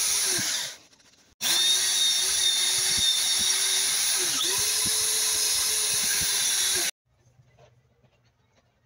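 Electric drill running steadily as a makeshift lathe, spinning a small wooden pot while sandpaper is held against it, with a steady motor hum and a sanding hiss. Under a second in the drill winds down and stops briefly, then starts again and runs until it cuts off suddenly near the end, leaving near silence.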